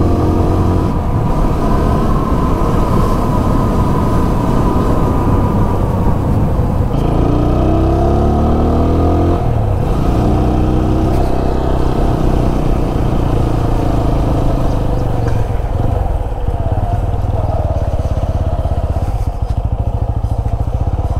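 Single-cylinder engine of a TVS Apache 200 motorcycle running while being ridden, its pitch rising and falling with the throttle.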